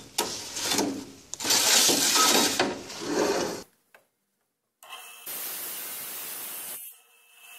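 Large-format ceramic tile scraping and rubbing as it is slid across a wet saw's metal sliding table, in several loud irregular scrapes. After a short gap, the wet saw runs with a steady hiss.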